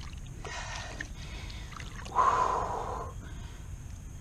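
Shallow water sloshing around a large blue catfish held by the tail while it is revived for release, with a short splash starting suddenly about two seconds in and fading within a second.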